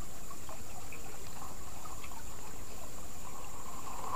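Stream water trickling and flowing, a steady wash, with a thin steady high whine over it.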